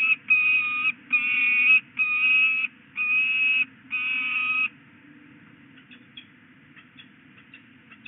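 Peregrine falcon at its nest box giving a series of six drawn-out, harsh calls of even pitch, about one a second, which stop shortly after four and a half seconds in. Faint scattered clicks follow.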